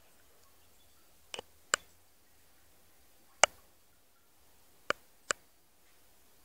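Water dripping from a bathtub tap: single drops land as short, sharp clicks at irregular intervals, about six in all, the loudest midway.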